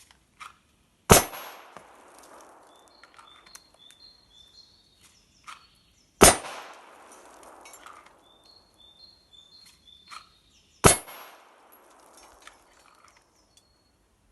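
Three single pistol shots, about five seconds apart, each followed by a long fading echo.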